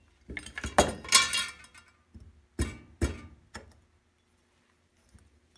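Metal parts of a disassembled Kawasaki 440 snowmobile carburetor clinking and knocking against each other and the bench as they are handled: a cluster of ringing clinks in the first second and a half, then three sharp knocks about half a second apart.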